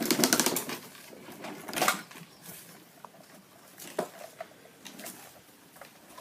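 Toys being handled: a fast clicking rattle at the start, a short scrape about two seconds in, then a few scattered clicks.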